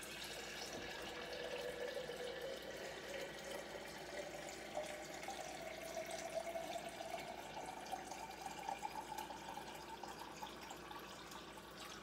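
Filtered water running from a kitchen filter faucet into a glass quart jar, the pitch rising steadily as the jar fills.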